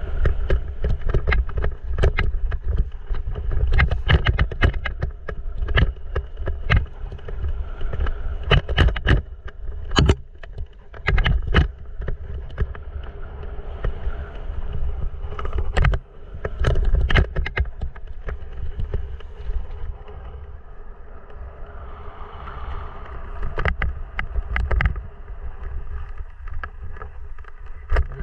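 Mountain bike rolling over a dirt-and-gravel singletrack. There is a steady low rumble, and many sharp clicks and knocks come as the bike and camera rattle over bumps. The knocks are frequent through the first two-thirds and ease off near the end.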